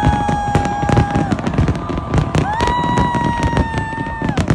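A dense fireworks display: shells bursting in rapid bangs and crackles. Over them run long, high held tones of about two seconds each, gliding up at the start and falling away at the end, one at the very start and another from about the middle.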